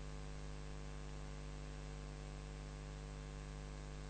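Steady low electrical mains hum with a faint even hiss, the background of the recording with no other sound.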